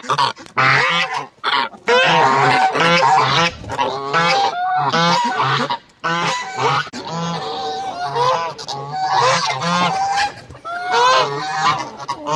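A flock of farmyard poultry calling loudly, with many overlapping calls in quick succession.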